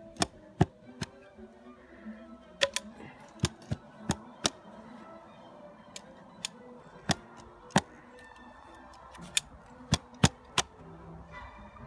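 Sharp clicks from a spring-loaded brass mushroom-spawn inoculation tool as it is pushed into sawdust spawn and plunged into drilled holes in an oak log, loading and inserting the spawn. About fifteen clicks, irregularly spaced, some in quick pairs.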